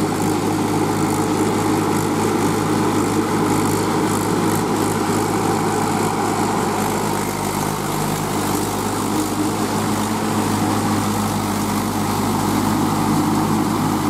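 Mahindra 475 DI tractor's four-cylinder diesel engine running steadily under load as it drives iron cage wheels through flooded paddy mud.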